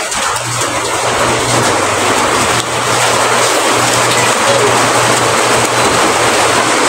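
A motor engine running steadily nearby: a loud, even engine noise with a low hum underneath that does not change.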